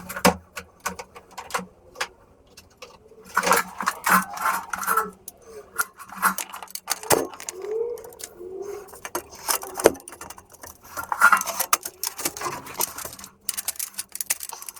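Hand tools and metal exhaust repair parts clinking, knocking and scraping in irregular bursts while the repair is fitted to a broken exhaust pipe, with a few short squeaks near the middle.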